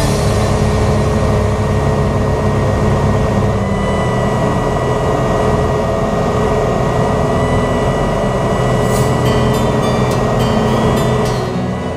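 Single-engine light aircraft's piston engine and propeller running steadily, heard from inside the cockpit.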